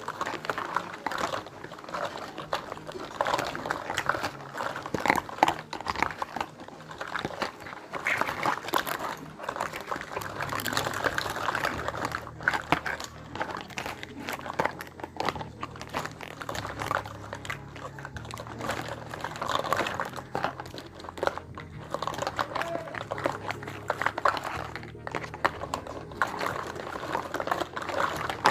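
Crinkling of plastic packaging and light clicks of small plastic toy kitchen pieces as a miniature kitchen set is unwrapped and handled.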